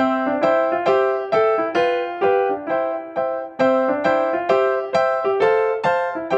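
Background music: a piano or electric-piano melody of evenly paced, plucked-sounding notes, about two to three a second.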